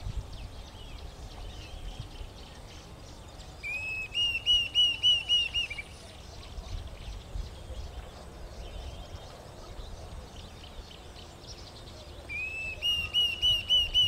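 Diederik cuckoo calling: two series of about eight clear, plaintive whistled notes, each note rising and falling, the first about four seconds in and the second near the end.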